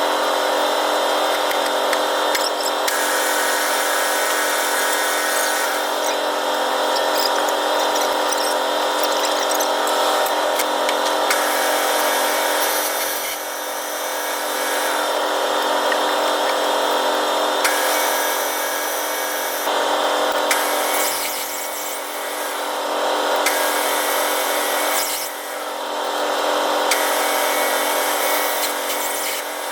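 Manual metal-turning lathe running steadily, its motor and gearing giving a steady whine over a mechanical hum, easing briefly a few times.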